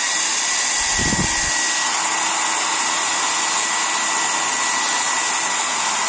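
Nova NHP-8100/05 1200 W foldable hair dryer running, blowing air with a steady high-pitched motor whine over the rush of air. There is a brief low rumble about a second in.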